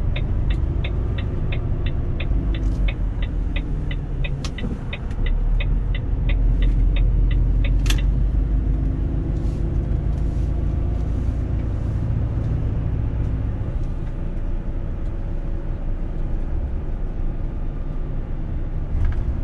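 Inside a Mercedes-Benz Actros truck cab: the diesel engine and road noise give a steady low rumble while the turn indicator ticks evenly, about two to three ticks a second, then stops with a click about eight seconds in.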